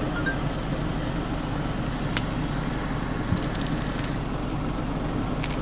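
The 2.5-litre diesel engine idling steadily, heard as a low hum inside the cab, with a few light clicks of car-radio buttons being pressed about two seconds in, several more around three and a half seconds, and one near the end.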